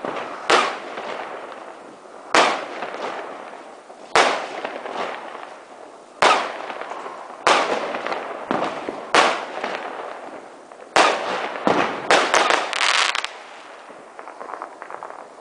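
Aerial fireworks bursting in the sky: a series of sharp bangs every second or two, each trailing off as it fades, with a quick run of several bangs close together about twelve seconds in.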